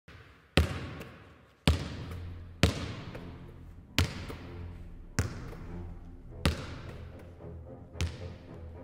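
A basketball bouncing slowly on a hard floor, seven single bounces about a second apart. Each bounce is followed by a long, booming echo that rings on.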